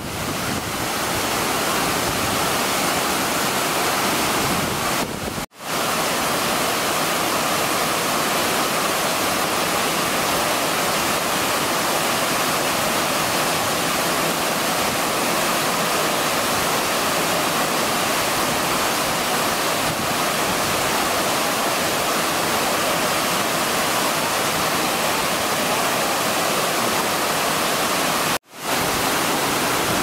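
Steady rush of Ōko Falls, a large waterfall falling in several strands down a rock face, heard from close to its base. The sound cuts out for a moment twice.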